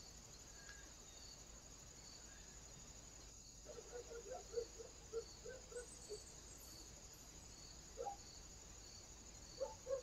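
Eurasian jay feeding at a seed-covered wooden stump: from about four seconds in, an irregular run of short low taps, with a few more near the end, over faint steady insect-like chirping.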